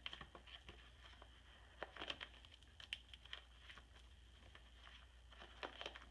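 Faint crinkling and soft clicks of plastic page protectors in a ring-bound scrapbook album as the pages are turned by hand, a few slightly louder rustles scattered through.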